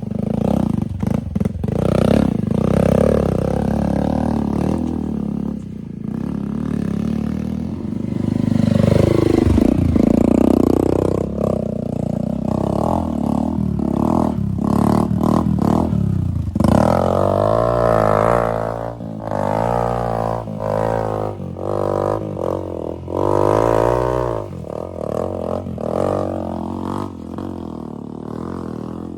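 Hero Impulse's single-cylinder four-stroke engine revving up and down under load as the motorcycle is ridden up rough, steep ground, with knocks and rattles from the bike over the bumps.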